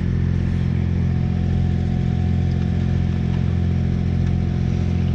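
Diesel engine of a concrete boom pump truck running steadily at constant speed while pumping.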